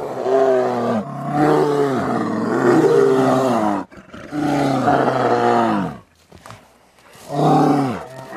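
Brown bears calling: drawn-out, deep pitched calls that slide down in pitch, repeated in three bouts with short breaks about four and six seconds in.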